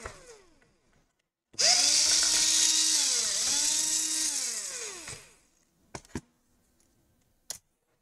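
Small electric screwdriver spinning for about four seconds as it backs out a laptop bottom-case screw, its whine dipping briefly midway and falling as it winds down. A few light clicks follow near the end.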